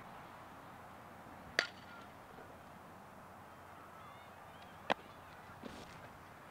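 A softball smacking into a leather fielding glove twice, two sharp pops about three seconds apart.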